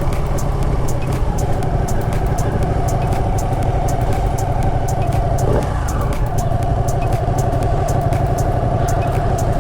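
Motorcycle engine running under way with wind noise, its pitch dropping briefly about halfway through and then settling back to a steady note.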